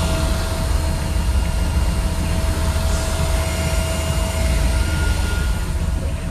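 Engine of a shuttle van running with its hood open: a steady deep rumble and whir, with a thin steady whine that fades out about five seconds in.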